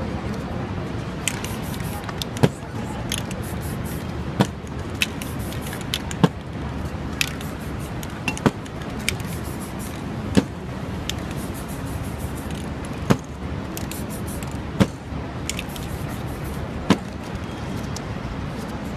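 Irregular sharp taps and clicks, about eight louder ones spaced one to three seconds apart among fainter ticks, over a steady hiss of background noise.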